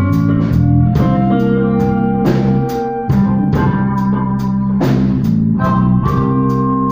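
Blues band playing an instrumental passage between sung lines: held chords over a steady drum beat.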